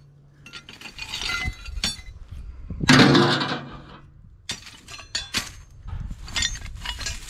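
Pieces of scrap steel clanking and clinking as they are picked through and tossed onto a pile, with one loud metal crash about three seconds in and smaller knocks and clinks throughout.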